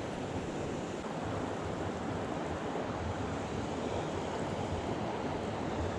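Creek water rushing steadily through a current.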